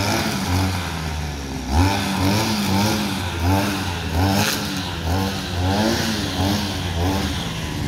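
Two-stroke brushcutter engine cutting weeds, its pitch rising and falling about twice a second as the throttle is worked.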